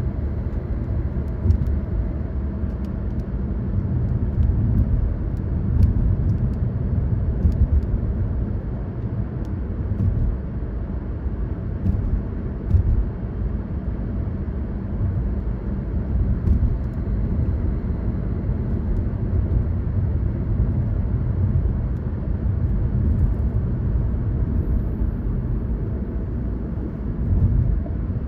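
A car driving along a road: a steady low rumble of tyres, road and engine that goes on without a break.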